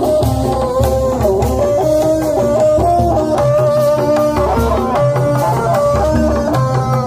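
Loud procession music from a street loudspeaker stack: a melody line over a repeating drum beat.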